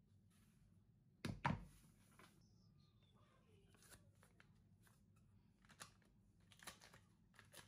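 A sharp double knock against a plastic mixing bowl about a second and a half in, followed by faint rustles and light taps as a foil-wrapped block of butter is tipped into the bowl.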